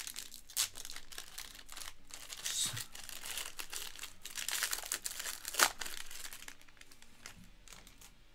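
A 2024 Topps Tier One Baseball foil card pack crinkling and tearing as it is opened by hand. The loudest crackle comes about two thirds of the way through, and the crinkling dies down near the end.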